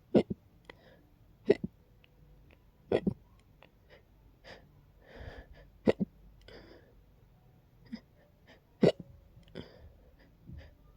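A person hiccupping over and over: five sharp hiccups one and a half to three seconds apart, with a few fainter ones and soft breathing between.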